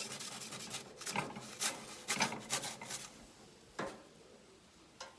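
A pizza peel scraping and knocking against the oven floor as a pizza is slid into a wood-pellet pizza oven: several rasping strokes over the first three seconds, then a single knock near four seconds in.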